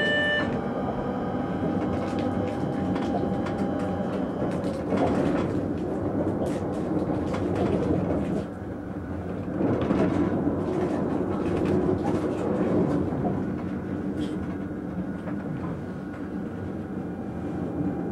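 Train running along the track, heard from inside the driver's cab: a steady rumble of wheels on rail with scattered clicks as it rolls over rail joints and points. A faint steady whine fades out about four seconds in.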